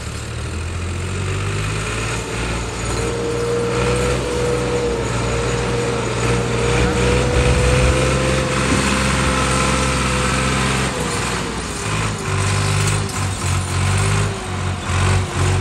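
Tractor diesel engine working hard, pulling a brick-loaded trolley through deep mud; the load is heavy enough to lift the tractor's front wheels. The engine note with a whine on top slowly climbs over the first ten seconds, drops at about eleven seconds, then surges unevenly.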